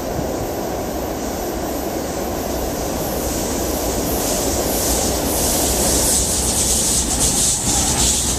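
Freight train led by GE D9-40C diesel locomotives approaching and passing close by: a steady diesel rumble that grows louder, with a high hiss of steel wheels on rail building from about halfway through, and a few wheel clicks as the lead locomotive goes by near the end.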